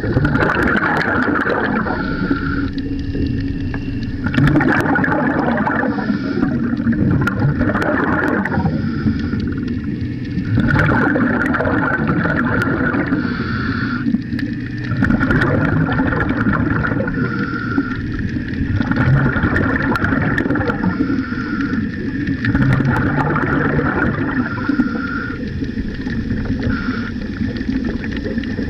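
Air bubbles gurgling and rushing, recorded underwater, in surges that come back roughly every four seconds.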